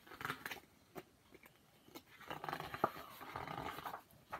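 Paper pages of a picture book rustling as they are handled and turned, with a light tap a little before three seconds in.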